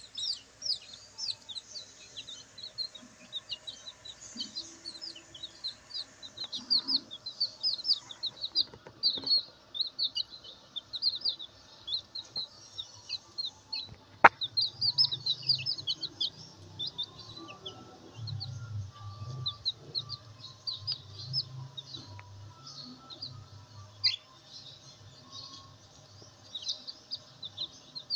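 Black bantam chicks peeping without pause, a dense run of short, high, downward-sliding chirps from several birds at once. A single sharp click about halfway through, with a low rumble through the middle stretch.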